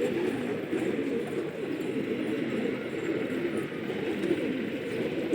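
Many domestic pigeons cooing together, a steady chorus of overlapping low coos.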